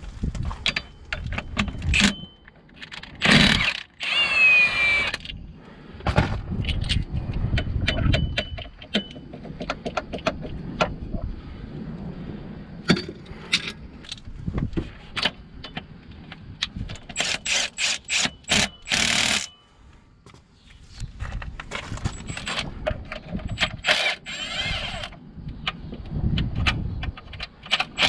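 Metal clinks and knocks of tools and parts while the crankshaft pulley is worked off a 1.6 HDi diesel engine. There are a couple of louder bursts of a power tool, about three seconds in and again near twenty seconds.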